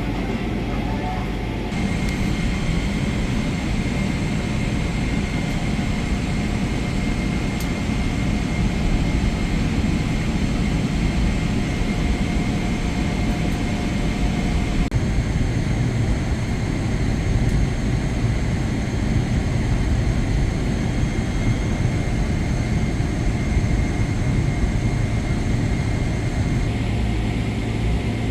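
Steady cabin noise of a Boeing 747-8i in flight: the even rush of the jet engines and airflow, with a low hum and a few faint steady tones. Its mix shifts abruptly a few times.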